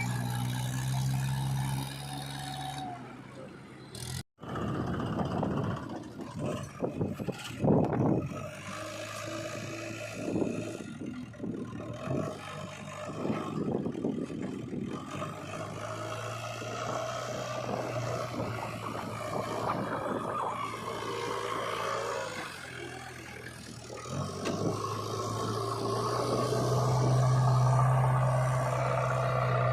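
Diesel engine of a JCB 3DX backhoe loader running, with scraping and clattering as its bucket works the mud for several seconds, then the engine getting louder near the end.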